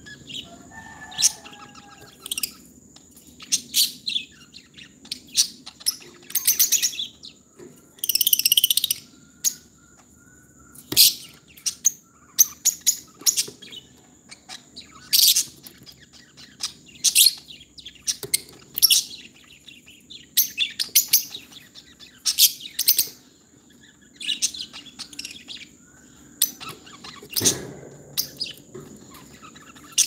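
Caged lovebirds giving short, shrill chirps about once a second, with a few longer buzzy chattering bursts, over a steady high-pitched tone.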